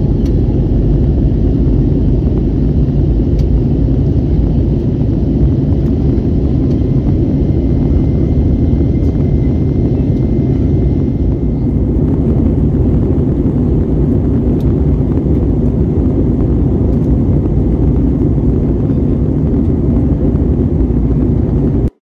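Steady cabin noise of an Airbus A321neo in flight: a low rumble of the engines and the airflow, heard from a window seat over the wing. It cuts off suddenly near the end.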